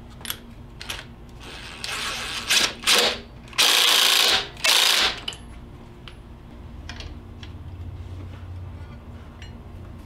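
DeWalt 20V cordless impact tool run in several short bursts, then a longer one of about a second near the middle and one more short one, driving the nut of the 49mm underdrive pulley on the alternator shaft. A few light clicks come before the bursts.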